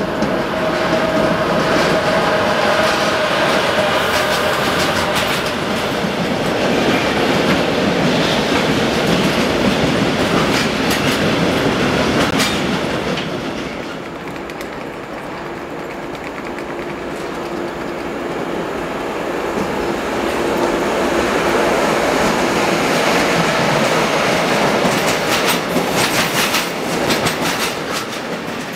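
Electric-hauled container freight trains rolling past at speed: steady wheel rumble with clickety-clack over rail joints, and a steady tone with overtones in the first few seconds. The sound dips about halfway, rises again as a second container train passes, and a run of sharp clicks comes near the end.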